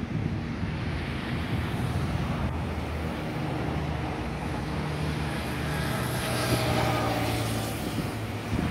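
Boeing 767-300ER on final approach, its two GE CF6-80C2 turbofan engines making a steady low hum with a rushing hiss that grows louder around six to seven seconds in.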